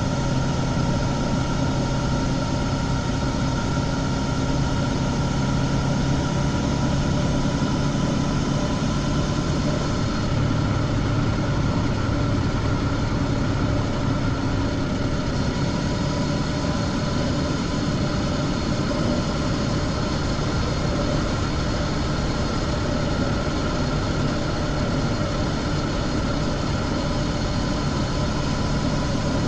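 Honda CB500X parallel-twin engine running steadily at cruising speed through its stock exhaust, heard from the rider's position with steady wind noise. About ten seconds in the engine note drops to a lower pitch and then holds steady.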